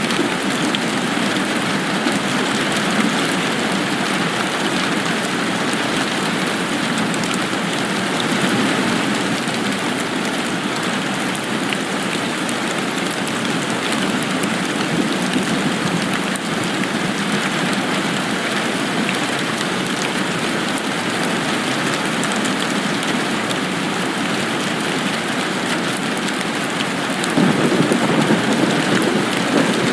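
Steady rain falling, a constant hiss scattered with fine drop ticks. Near the end a deeper, louder swell lasts a couple of seconds.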